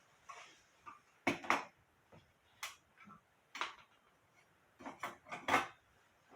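A string of irregular, faint clicks and light knocks of hard objects being handled.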